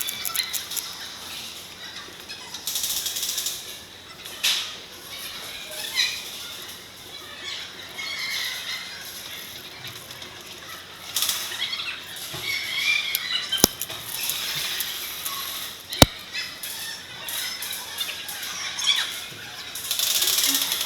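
Irregular rustling and scuffing of a player moving with gear, with scattered small clicks. Two sharp cracks about two and a half seconds apart come in the second half.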